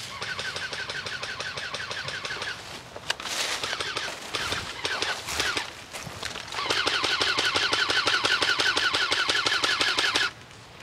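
Airsoft electric gun firing full-auto: a very rapid, even rattle of the gearbox cycling over the motor's whine, in two long bursts. The second burst, starting about two-thirds of the way in, is louder and cuts off sharply near the end; there is shorter, irregular noise between the bursts.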